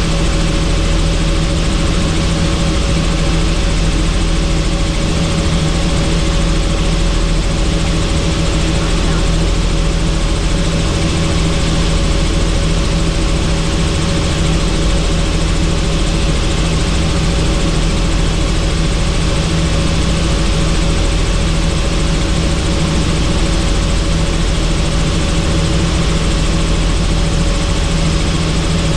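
Helicopter in flight heard from on board: a steady, loud drone of rotor and engine with an even rushing haze over it, unchanging throughout.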